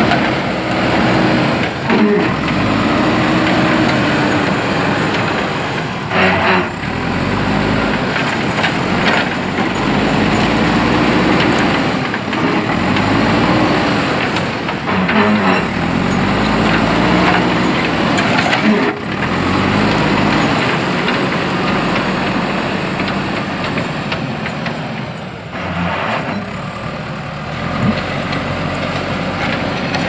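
Diesel engine of a JCB 3DX backhoe loader running under load as it pushes and levels dirt with its front bucket, its revs rising and falling again and again. A few sharp clanks from the machine stand out above the engine.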